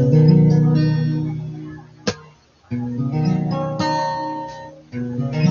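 Acoustic guitar strummed: three chords, each left to ring and fade away. A sharp click comes about two seconds in, followed by a brief gap before the second chord.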